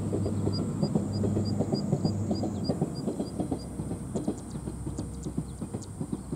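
A pair of Tenryu Hamanako Railroad TH2100 diesel railcars running coupled, their engine hum fading as they move away and dying down about halfway through, over a dense low crackle. A high chirping, about three a second, sounds through the first half.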